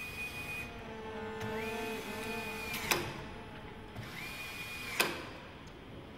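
A 9.6-volt cordless screwdriver whining in three short runs, its motor rising quickly to a steady high pitch each time. The second and third runs each end in a sharp click, about three and five seconds in.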